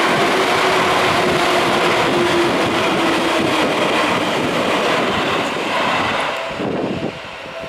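Seibu Shinjuku Line electric commuter train running past at a level crossing. The noise eases off over the last couple of seconds as the train moves away.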